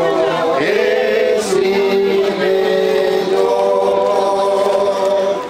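A choir of voices singing, sliding between notes at first and then holding one long chord for several seconds until it fades near the end.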